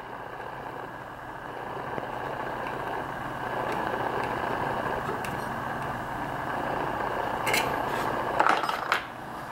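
Steady background hum, with a few light metal clicks and scrapes near the end as the pulley is tightened onto a shaft of a QT12 rotary rock tumbler.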